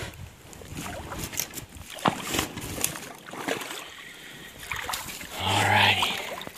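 Soft footsteps and sloshing in shallow creek water, with scattered small knocks and clicks. About five and a half seconds in, a louder rush of noise with a low hum lasts under a second.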